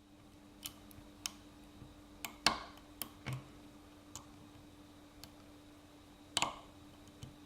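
Lock pick working the serrated pin stack inside a Kryptonite six-pin padlock: irregular light metallic clicks, with two louder clicks about two and a half and six and a half seconds in.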